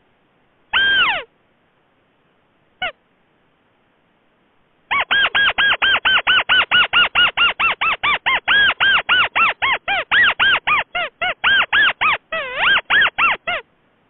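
Recorded rail call played as a bird-trapping lure. A single downslurred call comes about a second in. From about five seconds a fast, even run of arched notes follows, about four a second, for over eight seconds.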